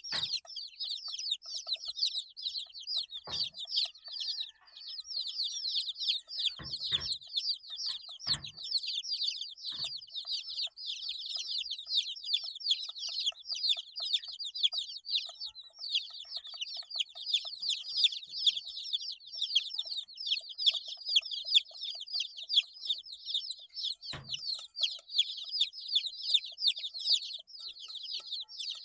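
A brood of 8-day-old chicks peeping continuously, many short, high, falling chirps overlapping. A few soft low thumps sound among them, about five times.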